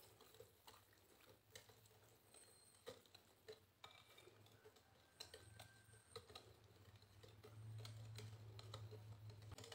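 Faint, irregular clicks of a small whisk tapping a glass bowl as rice-flour and coconut-milk batter is stirred to work out the lumps, over near silence. A low hum comes in near the end.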